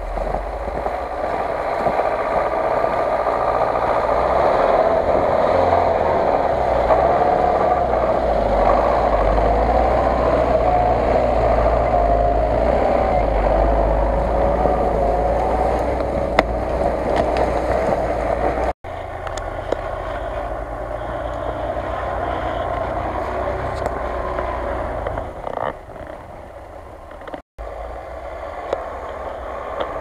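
GAZ-66 off-road truck's engine working hard through deep snow, its note rising and falling with the throttle. The sound cuts abruptly about two-thirds of the way through and continues more quietly, with another cut near the end.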